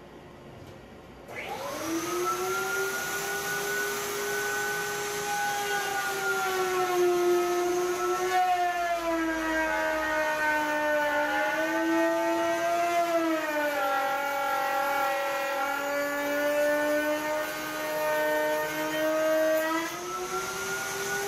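Table-mounted router spinning up about a second in and then running while cutting a groove in a pine board, a steady high whine over a rushing hiss. The pitch sags a little around the middle and again later, as the bit takes the wood.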